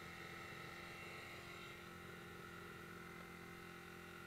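Faint, steady hum of a dirt bike engine running, with a few constant tones and no change in pitch.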